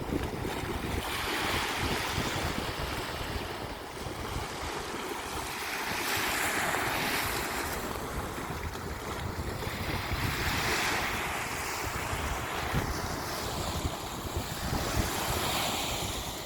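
Sea waves breaking on a beach: the surf's hiss swells and washes back four times, about every four to five seconds, over a low rumble of wind on the microphone.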